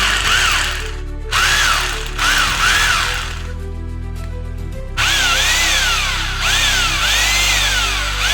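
Makita hammer drill's motor running in three bursts, its whine speeding up and slowing down several times within each, over background music.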